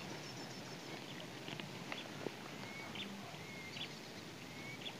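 A bird repeating a short, high chirp that slides upward, about once a second, over a faint steady hiss.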